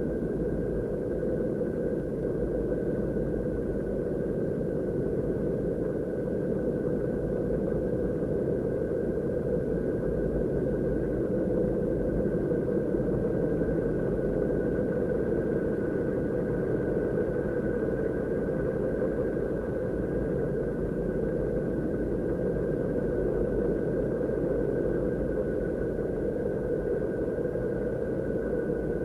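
Steady, deep, rumbling ambient drone presented as the sound of Saturn, with a thin, steady high tone above it. It does not change.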